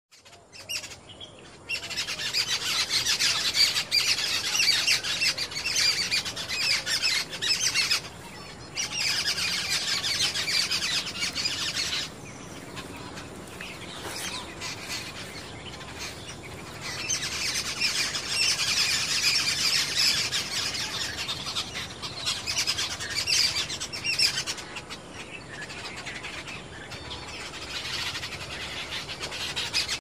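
A group of jungle babblers chattering loudly to each other in harsh, overlapping calls. The calls come in long loud spells of several seconds, easing to quieter chatter in between.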